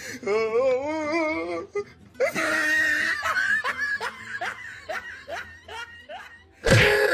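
People laughing: a wavering laugh at first, then a run of short, quick laughs. A loud burst of sound comes near the end.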